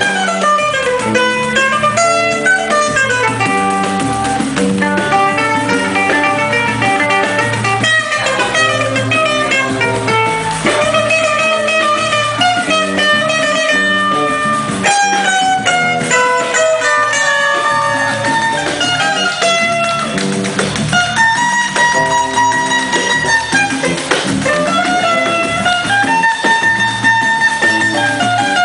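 Live band playing an instrumental stretch of a Christmas song medley, a guitar picking out the melody over bass guitar.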